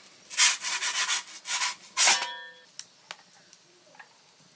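Metal pizza peel scraping across the metal shelf of a brick wood-fired oven in three or four short strokes, the last leaving a brief metallic ring. A few faint crackles from the log fire follow.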